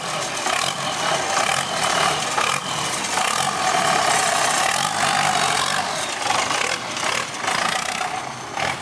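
Engine of a turbocharged rat rod running steadily as the car pulls away slowly.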